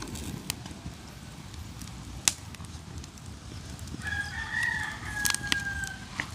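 A rooster crowing once: a single drawn-out crow of about two seconds, starting about four seconds in. A few sharp snaps and clicks come before and during it, the loudest a little over two seconds in.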